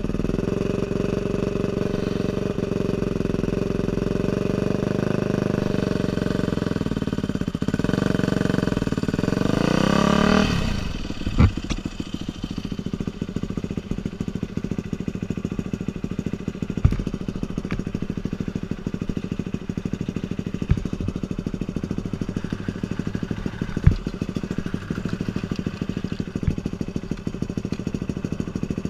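Dirt bike engine running at a steady pitch, then revving higher about eight to ten seconds in. It drops off to a low, evenly pulsing idle, with a few sharp knocks over the idle.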